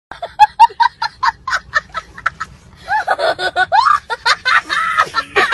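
A person laughing, first in quick repeated bursts of about four a second, then in a longer, denser run of laughter that rises and falls in pitch.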